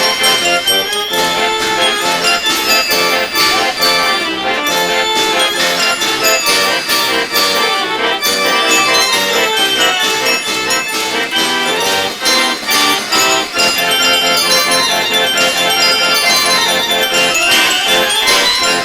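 Background music: an upbeat melodic instrumental with a reedy, accordion-like lead and jingling percussion.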